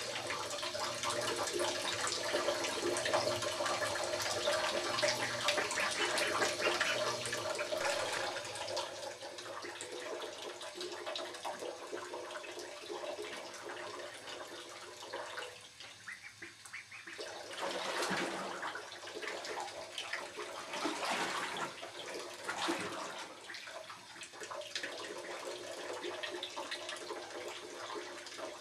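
Water splashing and sloshing in a bathtub as two ducklings swim and bathe. A steadier wash of water sound in the first third, then a few short, louder splashes about two-thirds of the way through.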